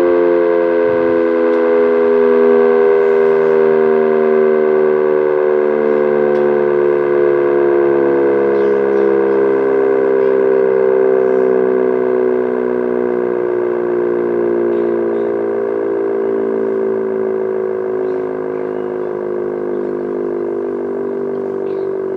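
Sentry 10V outdoor warning siren sounding its steady alert tone as it winds down, the pitch sliding slowly lower and the sound gradually fading.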